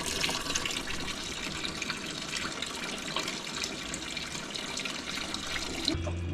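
Antifreeze draining from a disconnected radiator hose into a bucket, a steady splashing pour that cuts off abruptly near the end.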